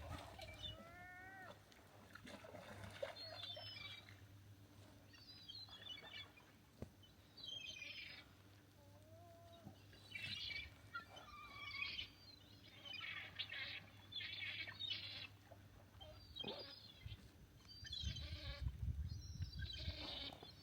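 Birds calling outdoors: many short high chirps, with a few drawn-out mewing calls that glide in pitch. Near the end, footsteps crunch in snow.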